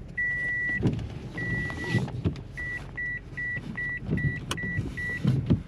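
A car's warning dinger beeping on one high tone: two long beeps, then a run of short beeps at about two and a half a second, over the low rumble of the vehicle. A sharp click sounds once, a little after four seconds in.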